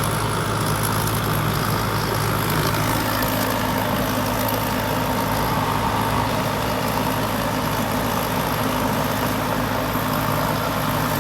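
Diesel engine of a Thai-built tracked combine harvester running steadily at a constant speed, with a low, even hum.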